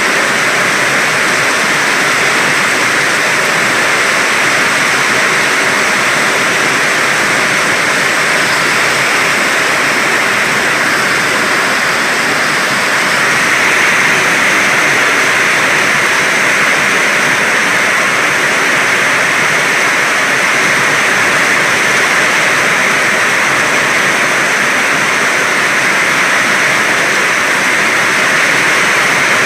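Heavy rain falling in a steady downpour, growing a little louder about halfway through.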